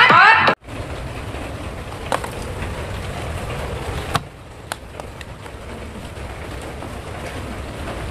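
A cartoon soundtrack of music with rising whistle-like glides cuts off suddenly about half a second in. A steady low outdoor background rumble follows, with a few faint light clicks.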